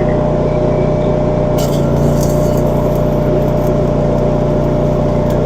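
A small engine or machine running steadily: a constant drone with an even tone. A few light metallic clinks and scrapes come about two seconds in.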